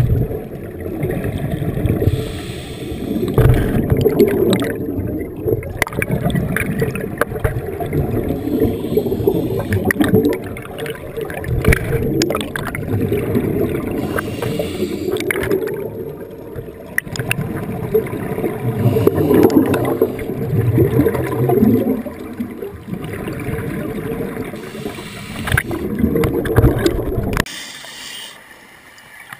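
Scuba divers' exhaled bubbles rushing and gurgling past a GoPro in its underwater housing, heard muffled and low, surging every few seconds with scattered crackles. It drops off sharply near the end.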